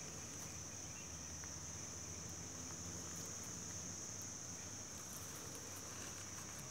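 Insects calling in a steady, unbroken high-pitched chorus.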